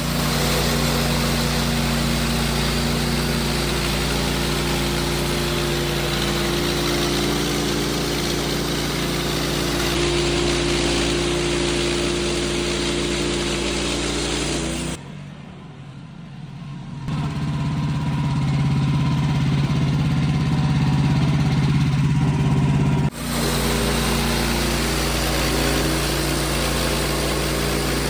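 An engine running steadily, with abrupt jumps in level and pitch: it drops much quieter about halfway through, comes back a couple of seconds later, and changes again near the end.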